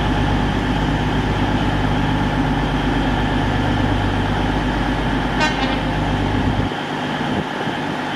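Diesel train engines running with a steady, loud drone. A brief high toot comes about five and a half seconds in, and the deep part of the drone cuts off suddenly about a second and a half before the end.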